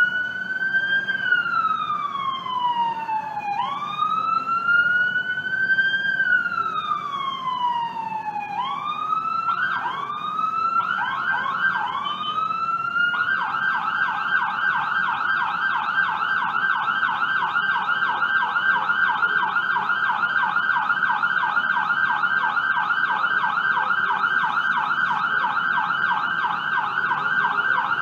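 Ambulance electronic siren sounding a slow wail that rises and falls, switching about nine seconds in to shorter whoops and then to a fast, steady yelp. Low road noise runs underneath.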